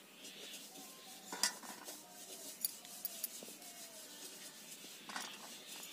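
A steel serving spoon scooping and scraping cooked rice in a stainless steel pot, with a few light clinks of metal on metal, the clearest about a second and a half in and near the end.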